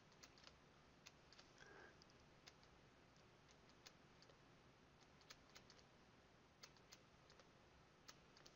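Near silence with faint, scattered clicks from a stylus tapping and sliding on a pen tablet as digits are written by hand, a few ticks a second at irregular spacing.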